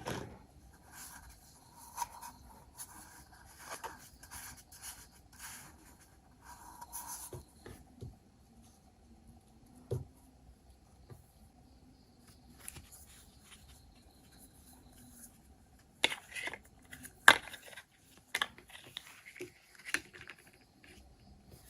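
Miniature toy kitchen pieces and their packaging handled by hand, with soft rustling and scraping at first. About two-thirds of the way through comes a run of sharp light taps and clicks, one clearly louder than the rest.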